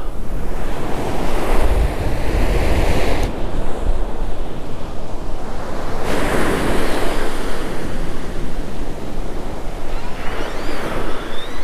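Ocean surf breaking on the beach, swelling in three surges, with wind buffeting the microphone and adding a steady low rumble.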